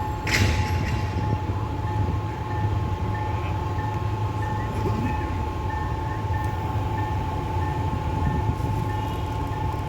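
Sri Lanka Railways S8-class diesel multiple unit running steadily with a low engine rumble and a steady whine. There is a brief hiss just after the start and a faint tone that repeats about twice a second.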